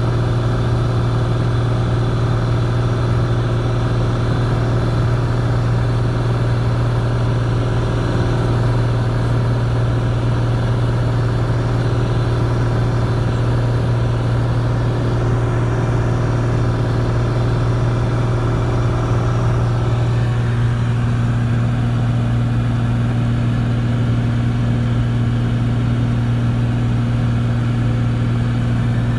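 Single-engine propeller plane's engine and propeller, a loud steady drone in cruise heard inside the cabin. About two-thirds of the way through, a second, higher steady tone joins the hum.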